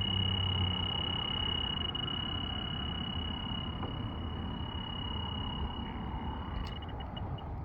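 Electronic refrigerant leak detector (heated-sensor type) alarming with a steady high-pitched tone, a sign that it is picking up leaking R-410A refrigerant. Near the end the tone breaks into separate short beeps, over a steady background hiss. A low rumble dies away in the first second.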